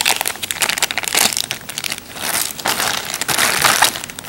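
Small clear zip-top plastic bag of mounting screws crinkling in irregular bursts as gloved hands handle it, loudest near the end.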